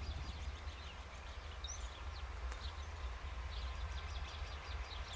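Outdoor ambience of a steady low rumble with many small birds chirping over it in short, scattered calls.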